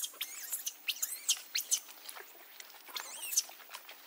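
Baby pig-tailed macaque squealing: a rapid run of short, high-pitched squeaks, some wavering up and down in pitch.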